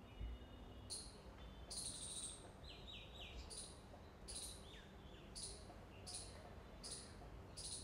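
Faint bird calls: a short high call repeated roughly every three-quarters of a second, with a few quick falling chirps around three seconds in, over low background noise.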